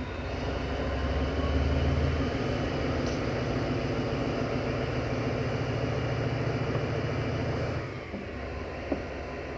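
Diesel-hydraulic shunting locomotive's engine running as it moves slowly. It comes up in power about a second in, holds steady, then eases back near the end. A brief click sounds just before the end.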